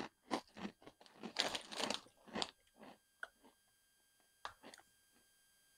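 Crunching and chewing of Herr's cheese pizza wavy potato chips: a quick run of crisp crunches over the first two and a half seconds, then a few sparser ones up to about four and a half seconds in.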